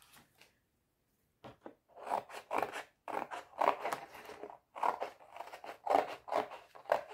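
Scissors cutting through a sheet of painted paper: a run of quick snips, about four a second, starting about a second and a half in.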